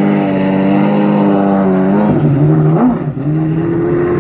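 Maserati MC12's V12 engine running at a steady note, dropping in pitch about two seconds in, giving a short rev blip near three seconds, then settling again at a lower, steady note.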